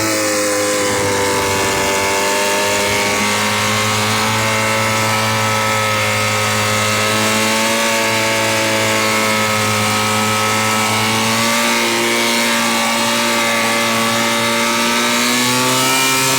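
Engine running at a fairly steady speed, its pitch drifting slowly up and down.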